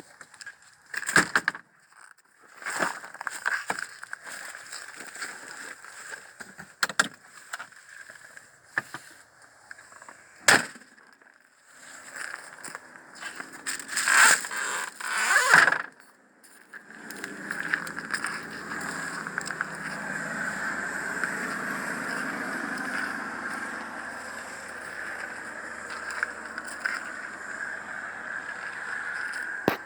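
Electric golf cart: a run of knocks and clicks, then from about halfway a steady running sound with a low hum as the cart moves along on its tyres.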